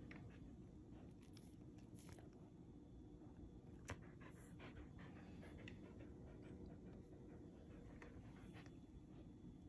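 Faint panting of a Samoyed dog in a quiet room, with scattered soft ticks and one sharper tick about four seconds in.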